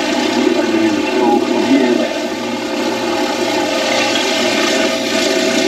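Pressure washer spraying water against a car's underside: a steady hiss of spray over a constant hum from the machine.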